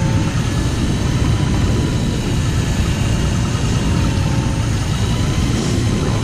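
Steady low rumble of an outboard boat engine mixed with wind on the microphone, with a faint thin whine from an electric deep-drop reel winding in line.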